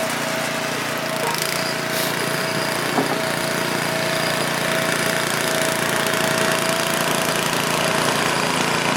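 A small engine running steadily with a fast, even pulse, and a single short click about three seconds in.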